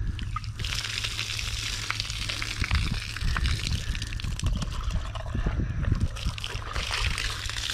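Water from a garden hose spraying into and splashing off a canvas shoe, rinsing the soap out of it: a steady hiss that starts about half a second in.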